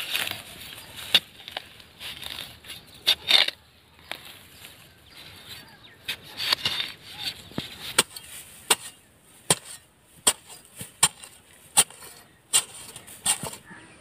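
Iron digging bar striking and levering into packed soil to open a rat burrow: a run of sharp knocks, a few scattered at first and then a steady one roughly every three-quarters of a second in the second half, with scraping and loose earth between them.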